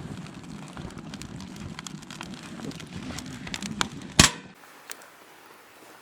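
Firewood crackling and popping in a burning wood fire, with many small snaps and one loud pop about four seconds in.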